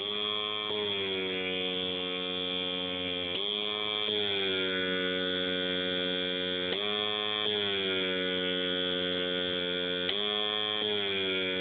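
Steady electrical or machine hum made of several tones together, its pitch dipping slightly and settling again about every three and a half seconds in a repeating cycle.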